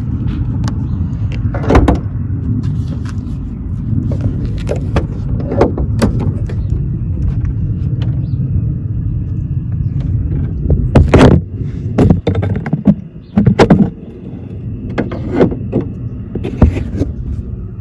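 Steady low rumble around a car, with several sharp knocks and thuds from the car being handled, the loudest cluster about eleven to fourteen seconds in.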